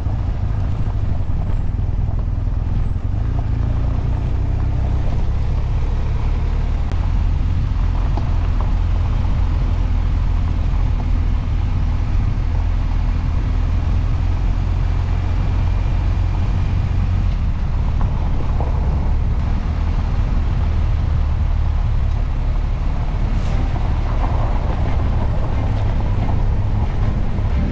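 BMW R 1250 GS boxer-twin engine running steadily as the motorcycle rides along a gravel road, under a constant low rumble.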